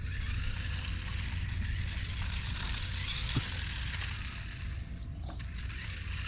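Toy remote control cars driving, their small electric motors whirring unevenly over a steady low rumble. There is one short knock about three and a half seconds in.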